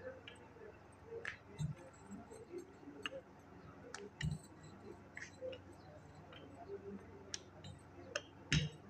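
Wooden rolling pin rolling out samosa dough on a marble countertop: irregular light clicks and taps as it rolls and shifts, with three dull thumps as it is set down or knocks the slab.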